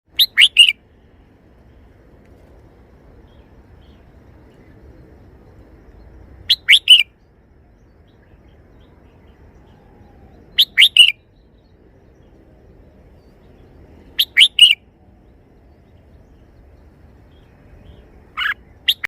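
Red-whiskered bulbul singing a short three-note phrase five times, every four to six seconds, each phrase quick and loud.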